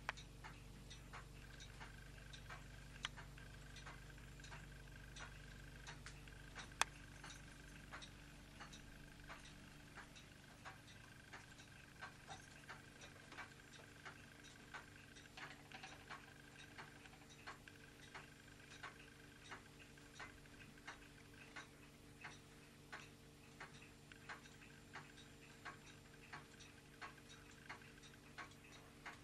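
Faint mechanical clock ticking steadily, about once a second. A low hum stops about ten seconds in, and two sharper clicks come within the first seven seconds.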